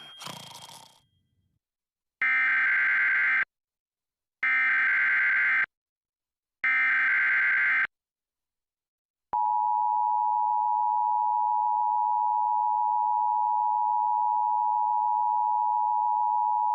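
Emergency Alert System broadcast of a Required Monthly Test: three short screeching SAME digital header bursts about a second apart, then, after a pause, the steady two-tone EAS attention signal (853 and 960 Hz together) starting about 9 seconds in. A sound fades out in the first second.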